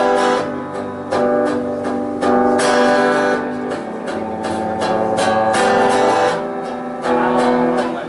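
Solo acoustic guitar strumming chords in a steady rhythm, the chord changing about every second, with no voice yet.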